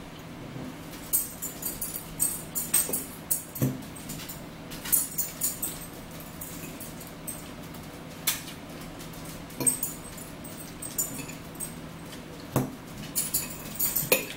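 Metal forks clinking and scraping against dinner plates in irregular clusters of short, ringing clicks.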